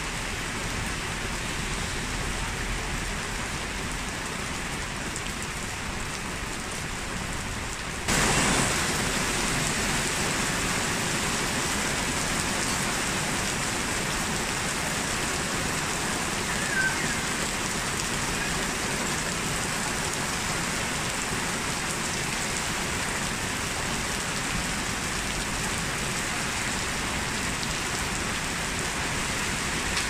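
Heavy rain falling on a wet street, a steady hiss of rain and splashing. About eight seconds in it changes abruptly to a louder, brighter rain recording.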